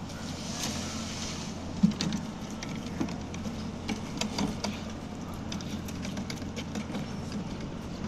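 A machine engine drones steadily, with scattered knocks and clanks from steel wheelbarrows being pushed and tipped on the wet concrete slab, loudest just before two seconds in and in a cluster about four seconds in.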